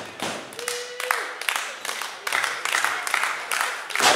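Small live crowd clapping in quick, uneven claps and calling out around a wrestling ring, with a loud sharp smack near the end.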